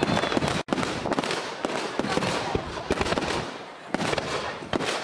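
Aerial fireworks bursting overhead: a dense run of sharp cracks and pops. The sound drops out for an instant less than a second in.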